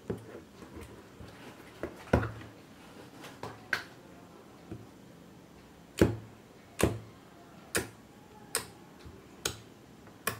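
A plastic tub's snap-on lid is pulled off with a few clicks, then a finger pokes into jelly-like shampoo slime in the tub again and again, giving sharp clicking pops a little under once a second.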